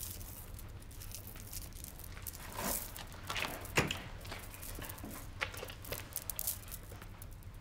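Quiet handling sounds: faint rustling of clothing and light clicks of jewellery being picked through and put on, over a low steady hum of room tone.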